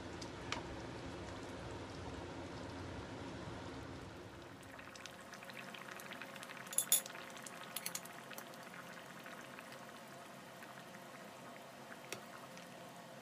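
Pork spare ribs and potatoes in tomato sauce simmering and bubbling in a frying pan. A few sharp clinks of a metal spoon against the pan, the loudest about seven seconds in.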